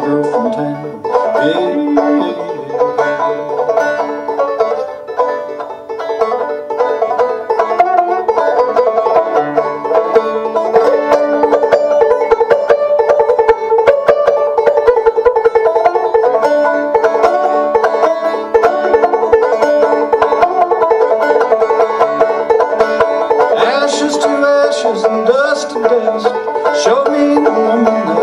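Five-string banjo played solo, a steady run of picked notes carrying an old-time tune that was originally a guitar piece.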